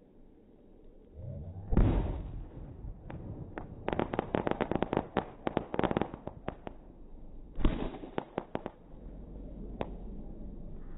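Fireworks played back slowed down: a deep boom about two seconds in, then a dense run of crackling bangs, and a second boom near the end followed by more crackles and one last crack.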